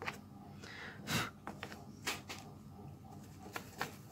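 A fine hair-dye brush sweeping built-up lint and dust off the metal needle-bar mechanism of an old sewing machine. It makes a handful of short, scratchy brushing strokes of bristles on metal, the strongest about a second in, with a few light clicks.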